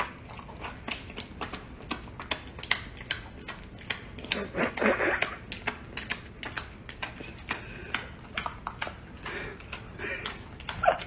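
A dog holding a slice of peanut-butter bread in its mouth, with a run of sharp, irregular clicks, a few a second. A brief pitched, voice-like sound comes about four and a half seconds in.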